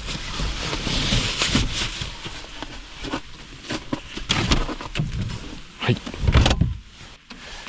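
Rustling and handling knocks as a sleeping bag is packed into a rear-mounted Fiamma Ultra-Box hard-shell cargo box, with several dull thumps in the second half.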